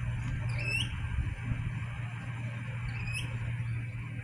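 Adelaide Metro 4000 class electric train standing at the platform with a steady low hum. A bird gives short upward-sliding squawks, about a second in and again after three seconds.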